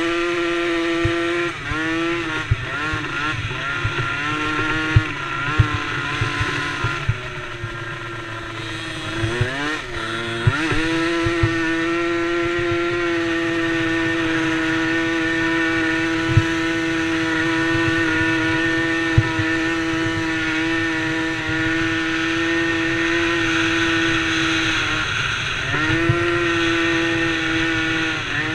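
DRR DRX90 youth ATV engine racing: revving up and down through the first ten seconds, then held at high revs for about fifteen seconds, easing off briefly near the end and climbing again. Scattered short knocks sound underneath.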